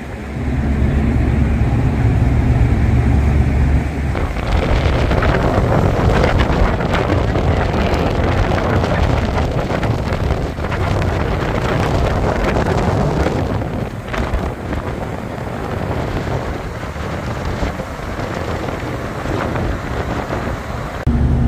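Low steady drone of the ferry's engines, then from about four seconds in, wind gusting across the microphone on the open deck, buffeting unevenly.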